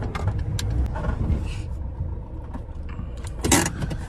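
Delivery van cabin on the move: steady low engine and road rumble with small scattered clicks and rattles. A short, louder noise comes about three and a half seconds in.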